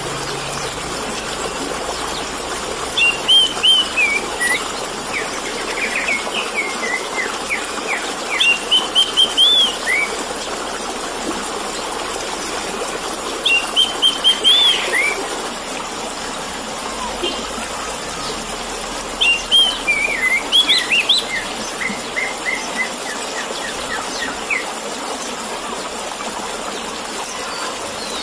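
Orange-headed thrush singing loud whistled phrases in about five bursts with pauses between them, the last a run of short quick notes, over a steady babbling of running water.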